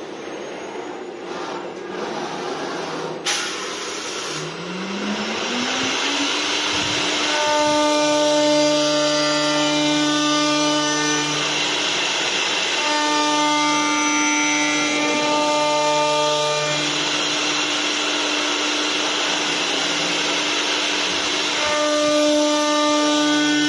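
CNC wood turning lathe running: a whine rises in pitch as the spindle speeds up, then holds steady over continuous machining noise. Three spells of louder, ringing tone follow, each several seconds long.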